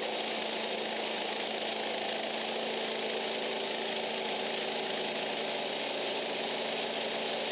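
Sawmill's engine running steadily.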